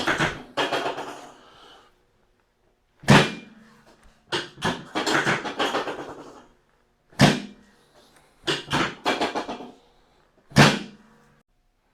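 Three sharp thuds, each ringing briefly, spaced about four and three seconds apart: the drop section of a chiropractic table dropping under the thrust of a hip adjustment.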